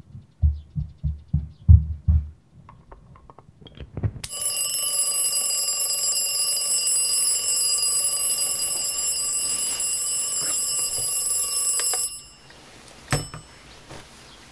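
Bell alarm clock ringing continuously for about eight seconds, then cutting off suddenly. Several low thumps come before it, and a single knock follows the ringing about a second after it stops.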